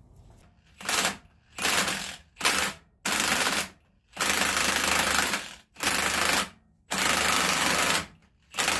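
Impact wrench on the crankshaft bolt hammering in about eight bursts, some short and some over a second long, turning the engine over to rotate the camshafts for a timing check.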